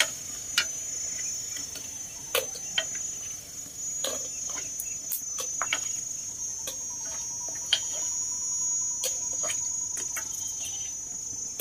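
Prawn crackers frying in a wok of hot oil, with chopsticks clicking against the crackers and the pan every second or so, over a steady high-pitched drone.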